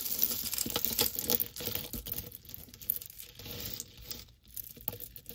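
Costume jewelry being handled: beads and a metal chain clicking and rustling together and against the table, a run of small clicks that is busiest in the first couple of seconds.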